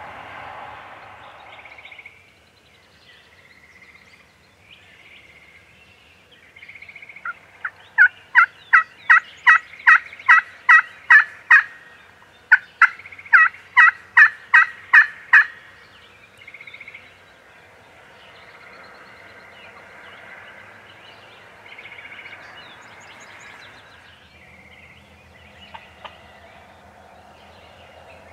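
Turkey yelping: two long runs of loud, evenly spaced yelps, about three a second, each note breaking from high to low. Fainter short calls come before and after.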